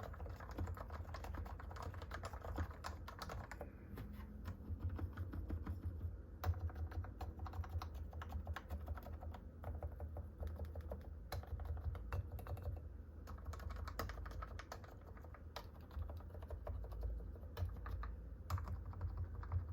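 Typing on a Realforce 45g Topre electro-capacitive keyboard, fully lubed, giving a steady stream of soft muted keystrokes with bursts of fast typing.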